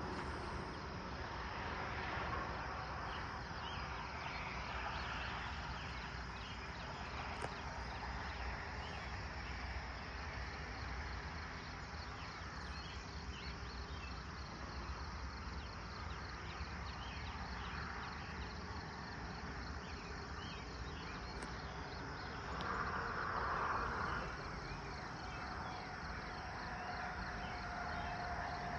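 Dawn insect chorus of crickets chirring in a steady, finely pulsing trill over a low rural rumble. A broader swell of noise rises briefly a little past two-thirds in, and a faint steady tone comes in near the end.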